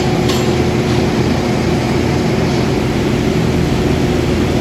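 Large dairy-barn ventilation fans running with a loud, steady mechanical drone that holds several low steady tones.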